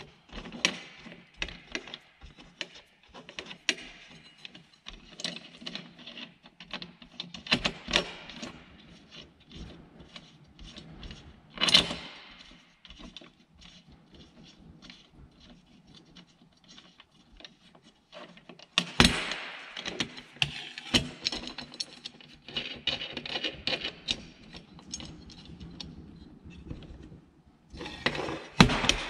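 Curved steel plates and small steel tube spacers clinking, rattling and scraping against each other and the steel workbench as they are handled and stacked, with a few louder knocks about twelve seconds in, again about nineteen seconds in, and near the end.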